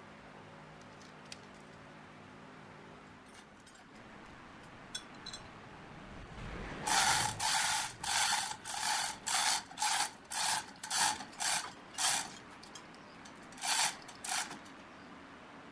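A hoist lowering a heavy log in a lifting strap, its mechanism ratcheting in short strokes about two a second: a run of around a dozen from about seven seconds in, a pause, then two more near the end.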